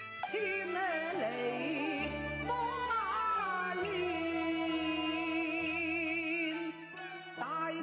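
Cantonese opera song music: a melodic line that bends, then holds a long note with vibrato, over a backing of sustained bass notes.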